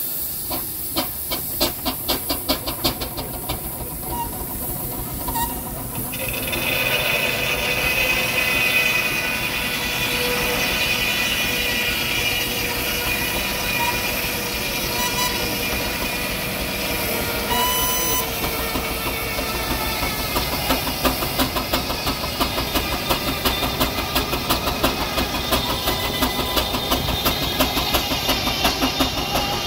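Steam traction engine driving a belt-driven saw bench, its exhaust beating steadily. From about six seconds in, the saw cuts through timber with a sustained whine over the engine's beat. Around twenty seconds in the cut ends and the engine's regular beat stands out again.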